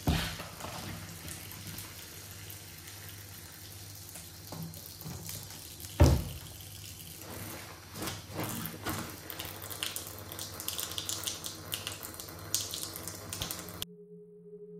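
Kitchen tap running a thin stream into a stainless steel sink, with a sharp knock about six seconds in. Then comes a patter of splashes as a curtain is worked by hand in the soapy water. Near the end the water sound cuts off abruptly and soft music with a held tone begins.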